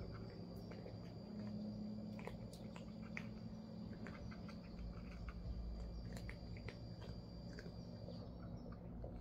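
Two cats eating from a shared bowl, chewing with many small irregular clicks. A steady thin high tone in the background stops about eight seconds in.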